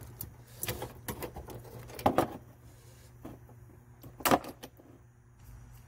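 Metal hardware clinking and knocking as a galvanized pipe flange with steel bolts is handled against the car's frame: a few sharp clinks, loudest about two seconds in and again just past four seconds, over a steady low hum.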